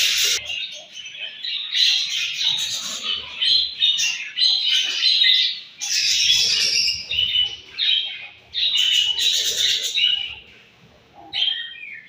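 Budgerigars chirping and chattering in dense overlapping bursts, with short pauses between them and a quieter stretch near the end.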